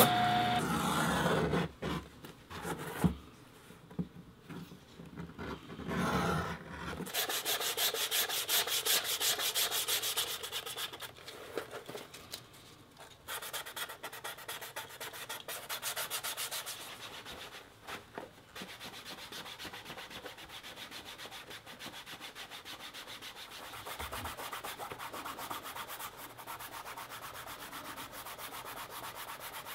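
Thick vegetable-tanned leather edge being rubbed by hand, a fast back-and-forth scrubbing that settles into an even rhythm about seven seconds in, working and smoothing the freshly sanded edge.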